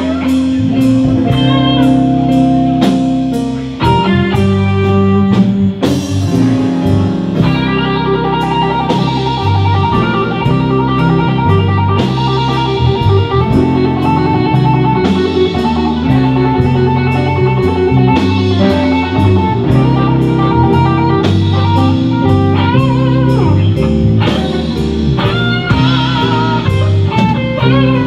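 Live blues band playing: a Fender Stratocaster electric guitar solo with sustained, bent and wavering notes, over a steady drum beat and a low bass line.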